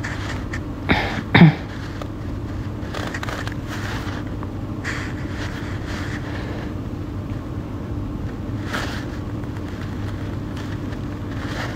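Steady low hum of room background noise, with two short louder sounds about a second in and a few faint soft rustles later.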